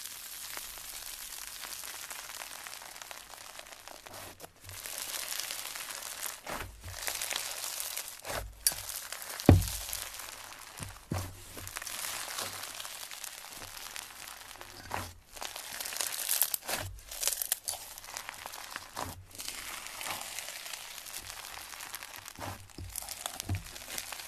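Foam-bead slime (floam) being pressed and pulled apart by hand: a continuous crackling crunch of the beads with many sharp clicks and snaps. The loudest is a single sharp pop about nine and a half seconds in.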